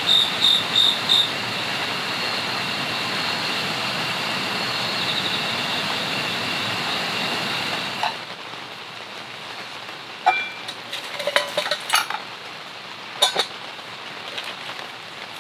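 Steady rain hiss with insects chirping and trilling, which cuts off about eight seconds in; then camping cups and a metal pot clink and knock several times as they are picked up.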